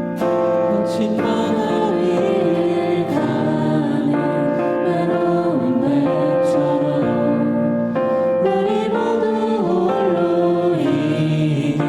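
A group singing a Korean worship song to keyboard accompaniment.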